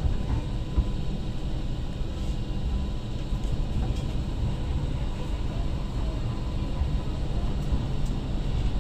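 MTR Light Rail Phase I light rail vehicle running along the track, heard from inside the passenger cabin: a steady low rumble with a faint steady tone above it.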